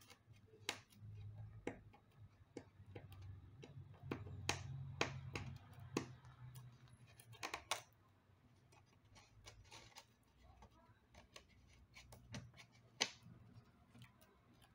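Scattered sharp clicks and light taps of hand tools on an iMac housing as old double-sided adhesive tape is picked and scraped off its edges, over a low hum that is stronger in the first half.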